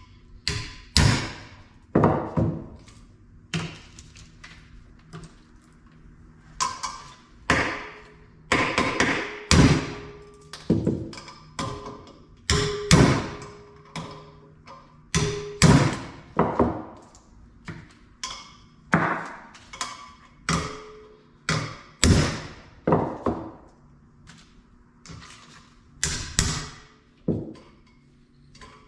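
Hammer striking a spark plug socket set on the valve spring retainers of a Ford 302 E6 cylinder head: repeated sharp metal-on-metal blows at an irregular pace of about one a second, some with a brief ring. Each blow compresses a valve spring to knock the keepers loose so the spring comes off without a spring compressor.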